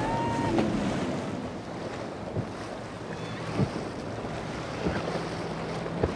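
Powerboat running through choppy inlet water: a steady rush of waves and spray, with wind buffeting the microphone. A single outboard engine's steady low hum comes in during the second half, and there are a few brief knocks.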